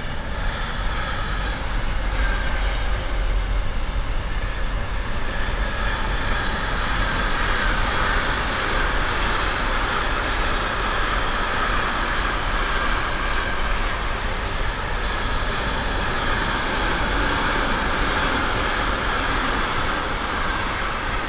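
Intermodal container freight train passing behind a Class 186 TRAXX electric locomotive: a steady rolling noise of wagon wheels on the rails, with a low rumble under a brighter rushing band, easing a little near the end as the last wagons go by.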